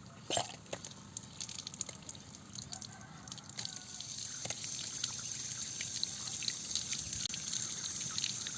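Water trickling and splashing in small drips, turning into a steadier, louder stream about four seconds in.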